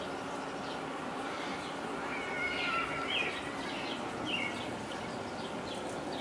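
Siberian Huskies at play: a few short, faint, high-pitched whines and squeaks in the middle of the stretch as the puppy mouths at his father.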